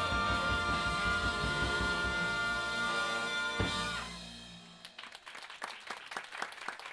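A big jazz band of trumpets, trombones and saxophones over drums and bass holds the final chord of the tune. It cuts off with a last hit about three and a half seconds in, and the sound dies away. Scattered applause from the audience follows.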